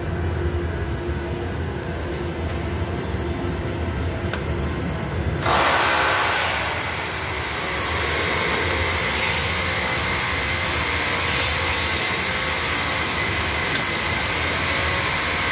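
Steady mechanical background noise with a low rumble, turning suddenly brighter and hissier about five seconds in, with a faint steady whine later and a few light clicks.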